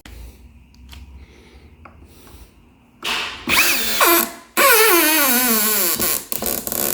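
Power drill driving a steel screw into the door jamb through a strike plate: a few light clicks, then about three seconds in short bursts of the motor, then a longer loud run whose pitch falls steadily as the motor slows under the load of the screw biting into the wood.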